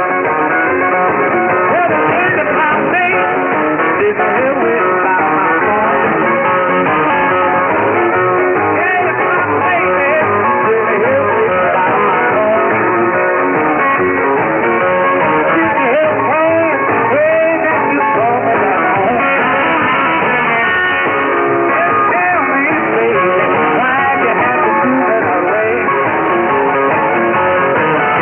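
Guitar-led rock music from a pirate shortwave broadcast, received in AM on 6925 kHz. It sounds narrow-band, with no highs.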